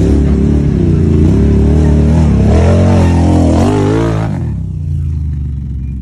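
ATV engine revving hard under load as it climbs a muddy creek bank, its pitch rising and falling with the throttle. About four seconds in it eases off and gets quieter.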